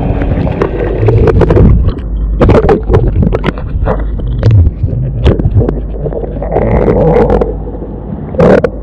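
Muffled underwater sound picked up by a submerged camera: a steady low rumble of moving water with irregular clicks and knocks.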